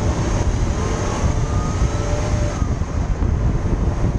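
A 986 Porsche Boxster on the move: tyre and wind noise on a camera low beside the front wheel, with the flat-six engine note rising slowly in pitch over the first couple of seconds as the car accelerates.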